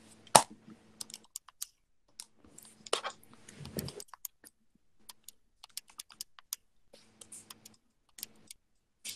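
Irregular clicking of keys being typed, in short runs with pauses between. The sharpest click comes about half a second in.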